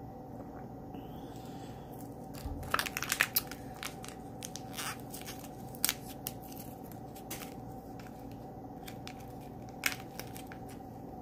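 Thin plastic water bottle and a small drink-mix packet being handled: sparse sharp crinkles and crackles. A soft thump comes about two and a half seconds in, then the loudest cluster of crackles, with a few more around six seconds and one near the end.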